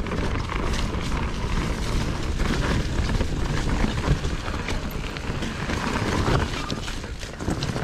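Mountain bike rolling down a leaf-strewn dirt trail: a steady rush of tyre and wind noise, dense with small clicks and rattles from the bike over rough ground, dipping briefly near the end.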